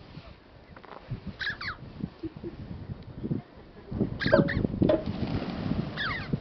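Red-billed choughs giving short, high, downward-sliding calls from the flock, a few at a time, with more calls from about four seconds in. Underneath runs low rustling noise that grows louder as the flock takes flight near the end.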